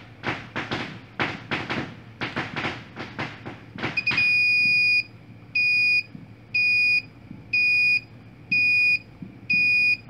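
Handling noise of a capacitor being pressed into a breadboard: scratches and clicks. Then a small electronic buzzer driven by a 555 timer beeps a steady high-pitched tone, one beep a second of about half a second each after a longer first beep. The slow beep rate comes from the 2200 µF timing capacitor just fitted.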